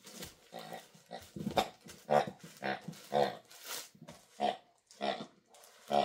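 A Honking Hog grunting pig dog toy, squeezed over and over as a puppy chews it, letting out a quick series of short pig-like grunting honks, about two a second.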